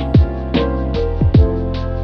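Background music with a steady beat: deep bass-drum hits that drop in pitch, sharp percussion and held tones.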